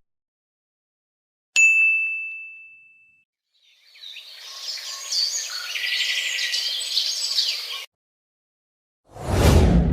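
A bright single ding rings out about a second and a half in and fades over a second and a half. Then come about four seconds of birds chirping, and near the end a sudden loud hit starts and begins to die away.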